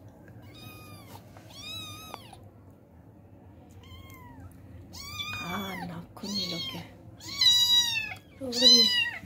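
Kittens mewing: a series of about seven high-pitched mews, each rising and falling in pitch. The mews come louder and closer together in the last four seconds.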